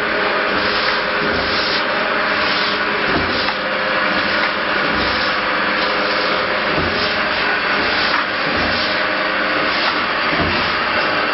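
Three-dimensional mixer running steadily, with a rhythmic swell about once a second from its tumbling motion and occasional low thumps.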